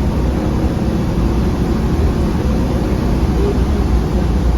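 Optare Solo M900 midibus running along, heard from inside the passenger saloon: a steady, loud engine and road rumble with an even haze of noise above it.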